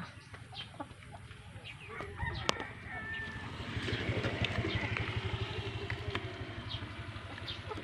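A rooster crows once, a long call that starts a little before halfway through and rises, then falls away.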